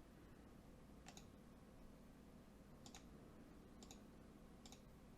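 Four faint, sharp computer mouse clicks over near-silent room tone.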